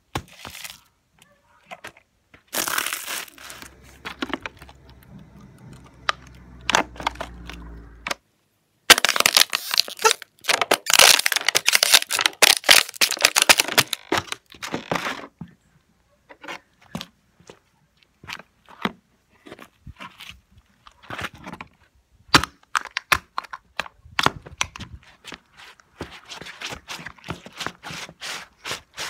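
Empty plastic water bottles being crushed under sneakers, crackling and crunching as they collapse, with scattered single cracks and steps on the pavement. The densest, loudest crackling runs for several seconds in the middle, and there is a shorter burst near the end.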